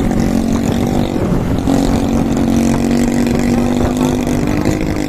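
Motorcycle engine running at a steady cruising pace under heavy wind rumble on the rider's microphone; the engine note dips briefly a little over a second in, then picks back up.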